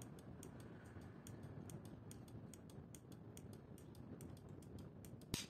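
Faint, rapid clicking of a digital timer's relay switching on and off in flasher mode, about five clicks a second, with one louder click near the end.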